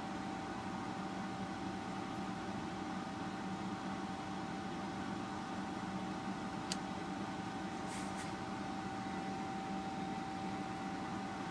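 Steady electrical hum and hiss from running laboratory test equipment, with one constant high whine held throughout. One sharp click sounds a little past the middle, and a quick pair of fainter clicks follows about a second later.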